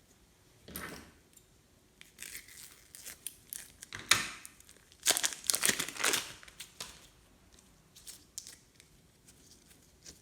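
Irregular crackling and crinkling handling noises as slime-making materials are worked by hand, loudest in a cluster about four to six seconds in.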